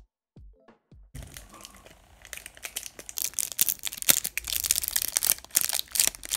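A short bit of electronic music with a beat stops about a second in. Then the crinkly gold-and-clear wrapper of a twist-wrapped Godiva chocolate is unwrapped by hand close up, crackling and rustling and getting louder after a couple of seconds.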